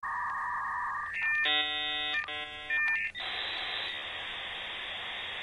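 Electronic intro sound effects: a steady high electronic tone, two short buzzy chord-like tones about a second and a half in, then a steady hiss from about three seconds in.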